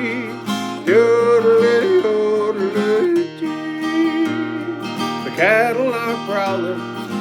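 Music: strummed acoustic guitar under a held melody line that wavers with vibrato.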